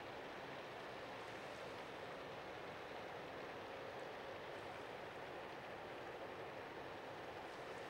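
Steady, even background noise, a faint hiss-like wash with nothing standing out and no change.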